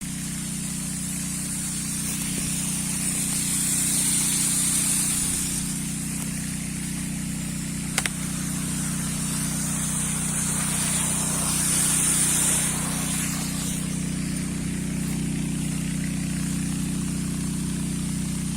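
A steady low machine hum, engine-like, with a hiss that swells twice and a single sharp click about eight seconds in.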